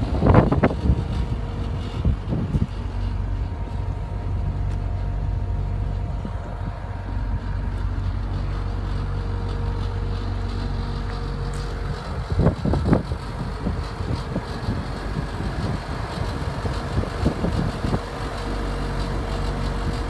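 An engine idling steadily with an even low hum. There are two brief louder rushes of noise, one at the very start and one about twelve seconds in.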